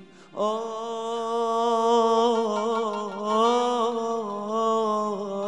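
A man singing a long, held melismatic note of an Arabic mawwal, coming in after a short breath and wavering in quick ornaments toward the end.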